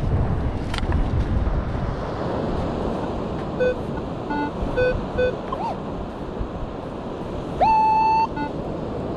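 Metal detector sounding target tones as its coil passes over a dug hole in the sand: a few short beeps, a brief chirp, then a louder steady tone just under a second long near the end, signalling a strong metal target still in the hole. Wind and surf hiss run underneath.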